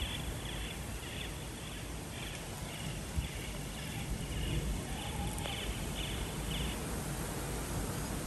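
Wind buffeting the microphone in a steady low rumble as the gum trees sway. Over it an animal gives a short, high, buzzy call about twice a second, which stops about seven seconds in.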